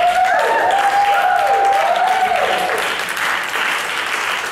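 Audience applauding in a hall, with a wavering tone rising and falling over the clapping in the first three seconds.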